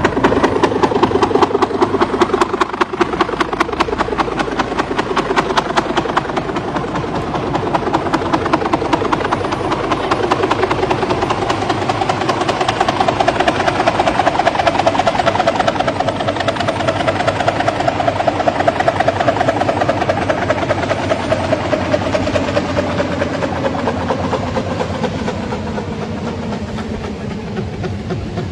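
AW139 twin-turbine helicopter, its main rotor blades just damaged by striking trees, coming down to land: a rapid, steady beat from the blades over the turbine whine. In the second half the whine's pitch slowly falls.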